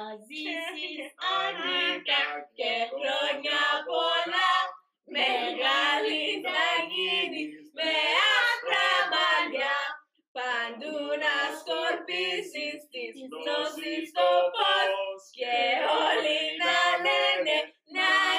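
Several voices, women's the loudest, singing a birthday song together in long phrases with short breaks between them.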